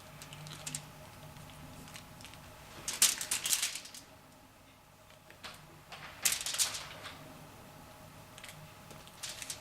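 Raw bacon strips being lifted and laid into a basket weave by hand: short bursts of crackly rustling and slapping, twice a few seconds apart, with a smaller one near the end.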